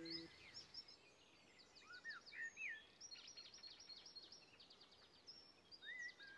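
Faint birdsong: quick chirping trills and a few short whistles that rise and fall, from more than one bird.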